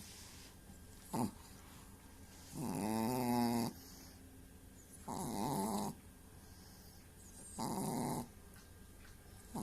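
Chihuahua snoring like an old man, with three drawn-out, pitched snores about two and a half seconds apart, each lasting about a second. A short sharp sound comes about a second in, before the first snore.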